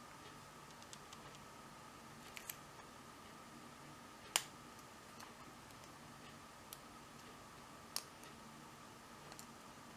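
Small sharp metallic clicks and taps of a lock pick and tension wrench working the pins of a brass pin-tumbler padlock, scattered and irregular, the loudest click about four seconds in and another sharp one near the end.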